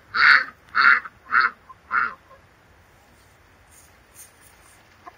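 Domestic duck quacking loudly, four quacks in a row in the first two seconds, each a little fainter than the last.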